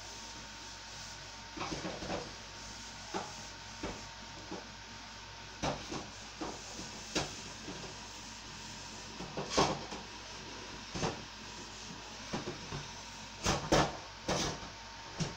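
A small white Chihuahua crunching and chewing a hard dog biscuit: irregular sharp crunches and clicks, loudest a little before halfway and again near the end.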